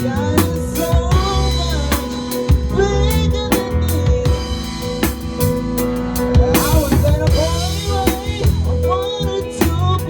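A band playing: drum kit with snare and bass drum hits under a bass line and a bending melodic lead.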